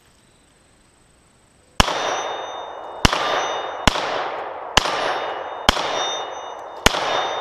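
Six 9mm shots from a Glock 43 pistol, starting about two seconds in and fired at an uneven pace, each with a long ringing decay.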